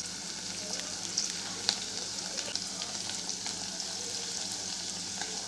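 Capsicum and onion sizzling in hot oil in a stainless steel kadai over a high gas flame, a steady hiss. A few light clicks of the metal spoon against the pan as it is stirred.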